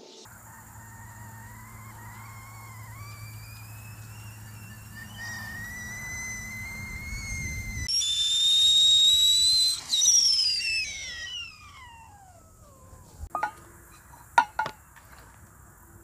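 Kettle whistling at the boil, its pitch creeping slowly upward, then sounding louder and higher before sliding down steeply and dying away. A few light clinks near the end.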